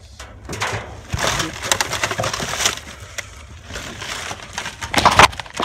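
Rummaging through garbage in a dumpster: plastic trash bags rustling and crinkling, with bottles and other rubbish shifting and clicking. There is a louder crunch about five seconds in.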